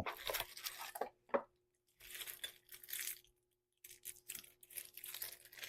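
Packaging rustling and crinkling with scattered small clicks and knocks as the multi-tool's blades are unpacked, in irregular spells broken by two short pauses.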